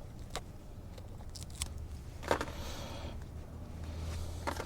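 A piece of Tesa fabric wiring-harness tape being pulled off the roll and cut: a few short crackles and clicks, the loudest about two seconds in, over a steady low hum.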